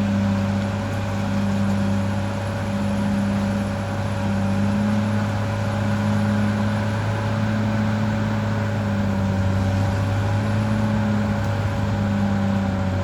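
Caterpillar D6R XL bulldozer's diesel engine running steadily at working revs, its low drone swelling and fading about once a second, with a steady whine above it.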